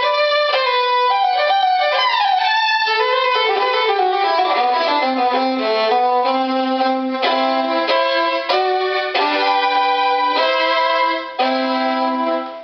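Full-size violin played solo: a bowed melodic passage with a few sliding notes, moving into held double stops in the lower register near the end, the last note fading away.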